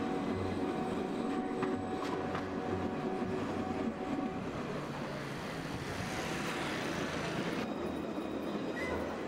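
Alstom Citadis tram passing close by, its electric drive humming in steady tones over the rolling noise of wheels on rail, with a rush of hiss from about six seconds in that stops sharply near eight seconds.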